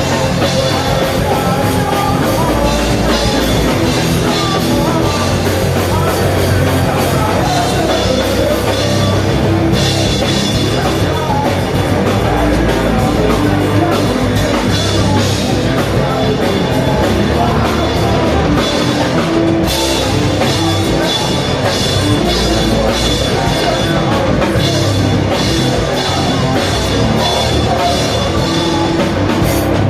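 Loud rock music with drums and a singing voice.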